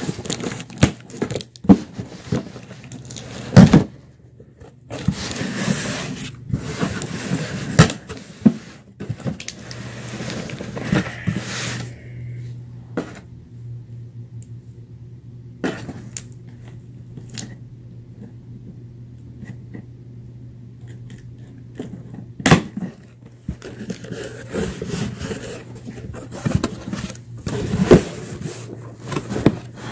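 Cardboard shipping box being wrestled open by hand: irregular knocks and thuds with stretches of scraping and rustling cardboard, quieter through the middle, over a steady low hum.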